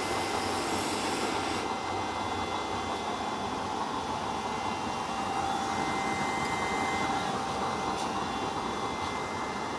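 Homemade used-oil double-burner stove running with both burners lit: a steady roar of the forced-air flames and blower, with a faint steady tone over it.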